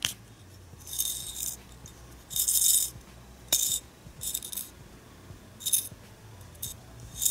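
Small plastic stars rattling loose inside the clear plastic wing-shaped top of a toy magic wand as it is shaken, in several short bursts.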